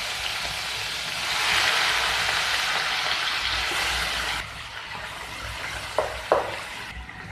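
Prawns frying in hot oil in a pan: a loud, steady sizzle that grows louder about a second in, then drops off abruptly a little past halfway. About six seconds in, a spatula knocks twice against the pan as the prawns are stirred.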